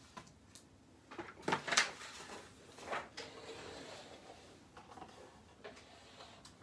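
Paper and craft supplies handled on a tabletop: several light knocks and clicks, the loudest about two seconds in, with a soft rustle a little after three seconds.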